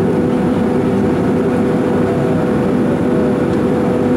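Steady cabin noise inside an Airbus A310 in flight, heard from a window seat over the wing: an even rush of engine and airflow noise with a constant hum.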